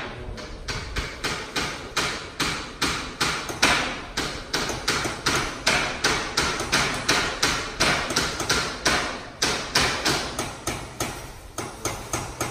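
Hammer blows struck in a steady run, about three a second, each sharp with a short ring after it.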